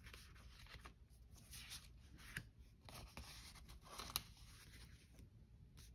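Faint rustling of paper sticker sheets being handled, with a few light taps and clicks, the clearest about two and four seconds in.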